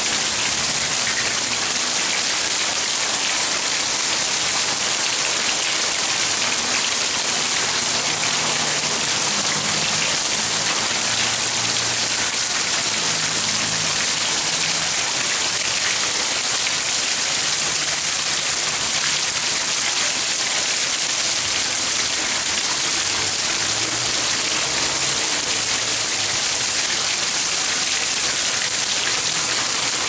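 Water of a public fountain spraying from its central column and splashing down onto the pool in its basin: a steady, dense hiss of falling droplets.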